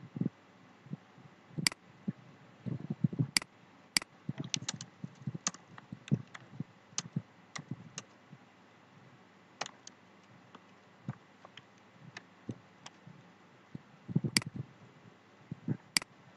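Computer keyboard typing and mouse clicks: irregular, scattered clicks with pauses between them, a few of them sharper and louder.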